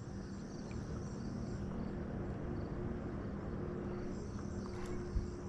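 Steady outdoor ambience of insects chirping, under a steady low hum, with one soft low bump near the end.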